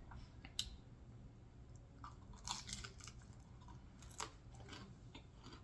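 Faint close-miked chewing of a pan-fried potsticker, with a few sharp crunches of its crust.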